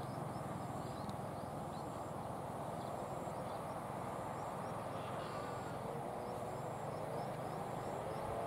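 Diesel-electric locomotive approaching, its engine a steady low rumble under a wash of running noise. Faint steady tones come in about five seconds in and grow louder toward the end.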